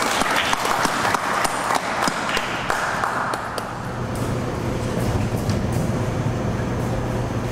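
Audience applauding. The clapping dies away about three to four seconds in, leaving a few scattered claps over a low steady hum.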